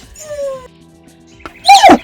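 Short, high-pitched animal yelps, one loud call near the end, with faint falling whistle-like tones before it.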